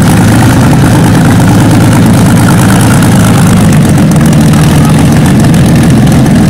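Packard-Bentley's 42-litre Packard 4M-2500 V-12 aero engine idling, loud and steady.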